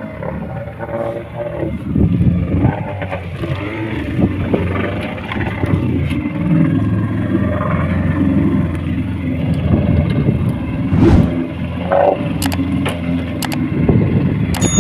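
Fishing boat's engine running steadily, with a few sharp clicks about twelve to thirteen seconds in.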